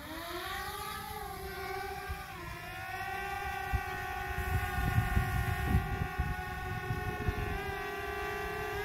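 Quadcopter drone's propellers spinning up with a rising whine as it lifts off, then settling into a steady hovering hum. Wind buffets the microphone through the middle, and the pitch wavers briefly near the end.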